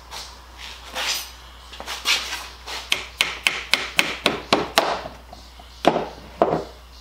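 Small hammer tapping wooden plugs into stripped screw holes in an old wooden board. A few scattered knocks come first, then a quick run of light taps about four a second, then two heavier blows near the end.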